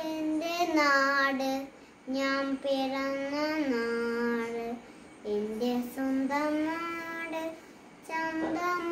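A young boy singing a Malayalam patriotic song unaccompanied, in long held phrases with three short breaks for breath.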